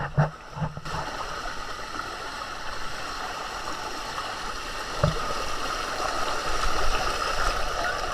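Waterfall water rushing steadily over limestone rock, with a couple of short knocks near the start and about five seconds in.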